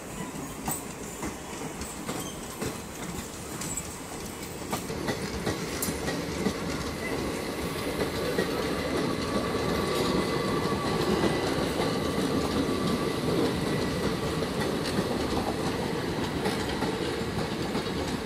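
Long Indian Railways passenger train of coaches running past, a steady rumble with the clickety-clack of wheels over rail joints, growing louder about four to six seconds in.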